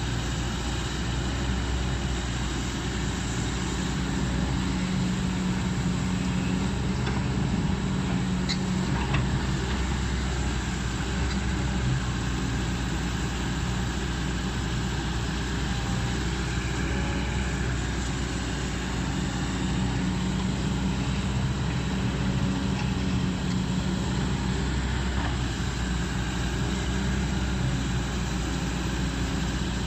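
Diesel engine of a Kobelco SK200 crawler excavator running steadily. Its drone swells and eases twice as the machine works under load.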